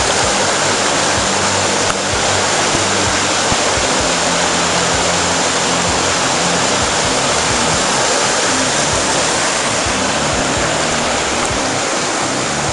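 Panther Creek's rapids and small waterfalls pouring over granite boulders: a steady, loud rush of white water.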